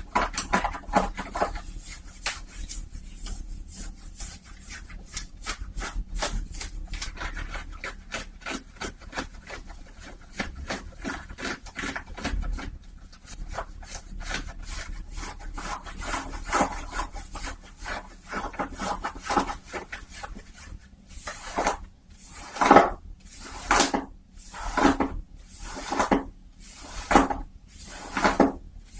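Close-miked cotton socks being rubbed. Quick, dense rubbing strokes give way about two-thirds of the way in to slower, louder strokes, about three every two seconds.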